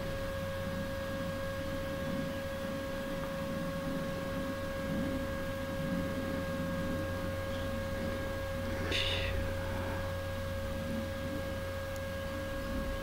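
A steady hum on one pitch with fainter higher tones above it, over a low rumble, and one short breathy hiss about nine seconds in.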